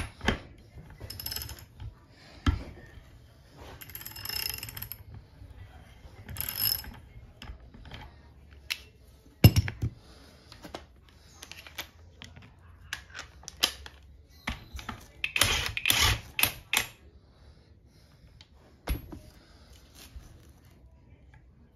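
Metal parts of a WAP 5100 Turbo pressure-washer pump being handled in a bench vise during disassembly: scattered clicks, clinks and short scrapes. A sharp knock comes about halfway, and a busier run of rattling about three-quarters through.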